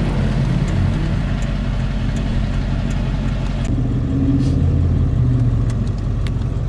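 Pickup truck's engine and road noise heard from inside the cab while driving, a steady low hum that changes abruptly nearly four seconds in, where the hiss above it drops away.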